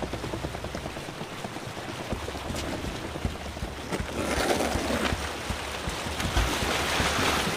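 Cartoon sound effect of rushing, splashing water flooding into a swimming pool, with a low rolling rumble underneath. The rush swells about four seconds in and again near the end.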